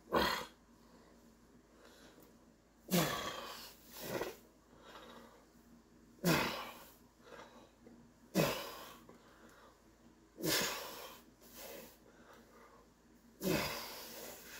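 A man's forceful, effortful exhales, about eight of them, one with each overhead dumbbell press, each a short breathy push that drops in pitch.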